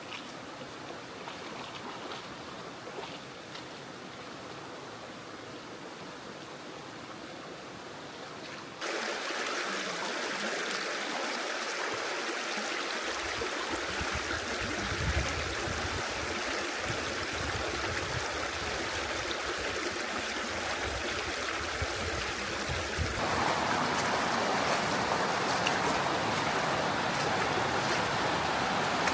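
Steady rush of a stream's running water. The sound jumps abruptly louder about nine seconds in and changes again about twenty-three seconds in, with some low rumbling in between.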